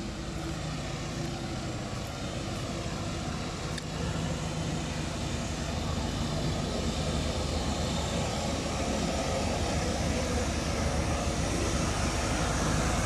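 Long-tail boat engine running steadily at speed, growing louder as the boat comes closer.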